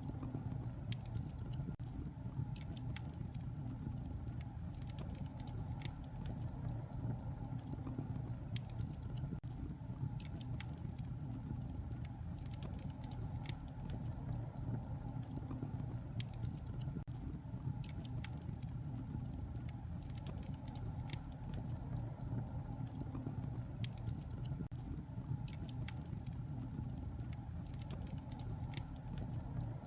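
Fire burning in a fireplace, crackling with frequent irregular sharp pops over a steady low rumble.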